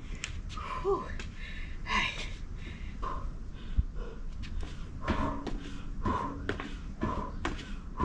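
A person exercising: feet striking the ground in knee-raise and kick moves, with short knocks and one heavier thump about four seconds in, and hard breathing.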